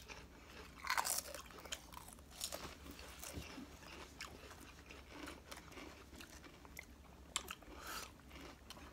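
Faint crunching and chewing of Takis Fuego rolled tortilla chips, with a few crisp crunches at irregular intervals.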